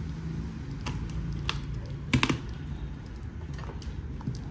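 Irregular small sharp clicks and taps of tools and parts being handled while a smartphone is taken apart for a screen replacement, the loudest a quick double click a little after two seconds in, over a steady low hum.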